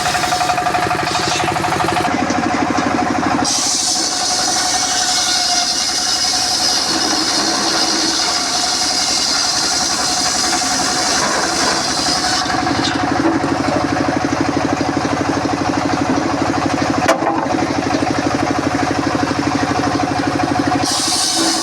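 Engine-driven circular saw running steadily while cutting mahogany. The sound changes twice: a high, hissing cutting sound comes in after a few seconds and drops away again about halfway through. There is one sharp knock near the end.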